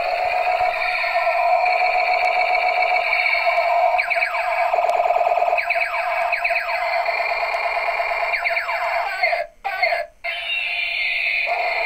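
Battery-operated light-up toy flash gun playing its electronic firing sound effects through its small speaker: a steady warbling electronic tone with runs of falling zaps, cutting out twice briefly near the end.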